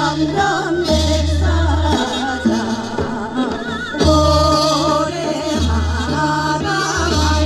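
Women singing a Korean folk song (minyo) into microphones with wavering vibrato, over amplified instrumental accompaniment with a strong, recurring bass note.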